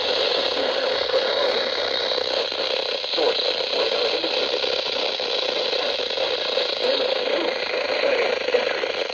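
Radio static: a steady hiss with no voice coming through.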